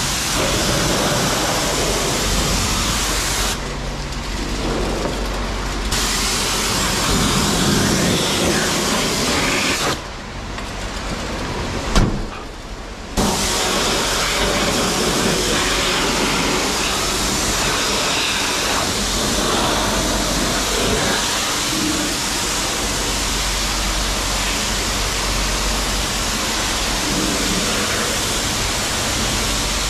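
Pressure washer spraying water onto a truck: a steady hiss of spray that falls away briefly twice, around four seconds in and again from about ten to thirteen seconds in.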